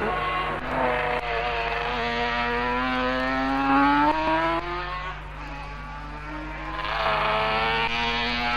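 Racing sidecar outfit's engine at full throttle, its note climbing steadily as it accelerates. The sound fades, then another outfit comes up loud near the end.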